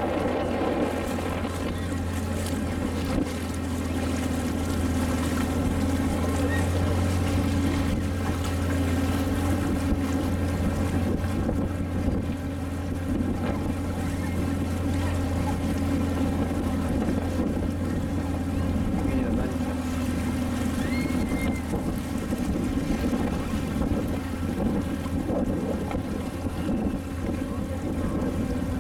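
Motor launch's engine running steadily at cruising speed, a constant low drone.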